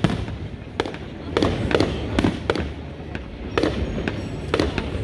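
Fireworks display going off: a quick irregular string of sharp bangs and pops, one to three a second.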